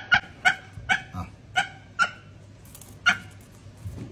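A falcon giving a series of short, sharp calls, quick and close together at first, then more spaced, the last about three seconds in.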